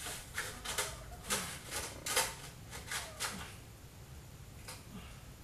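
Irregular clicks and knocks of a desktop computer case being handled, several in the first three seconds or so, then only one or two.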